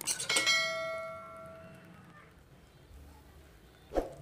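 A metal ladle knocks a few times against the rim of a pressure cooker, leaving a ringing metallic tone that fades over about a second and a half. A single dull knock comes near the end.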